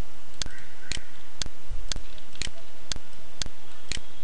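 Steady, regular ticking, about two ticks a second, over a constant hiss.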